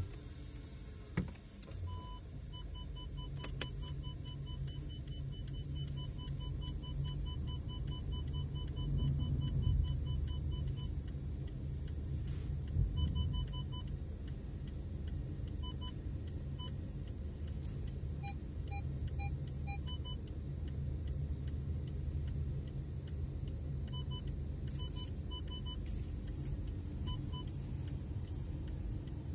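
Low in-car engine rumble while a car's parking sensors beep: a fast run of about four beeps a second, then short broken groups as the distance changes. Near the middle comes a set of four beeps in a different, lower tone. A short knock sounds just after the start.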